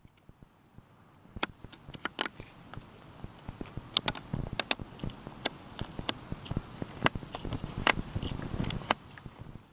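A dog chewing and gnawing a rubber toy on grass: a low rustle with many irregular sharp clicks, starting about a second in.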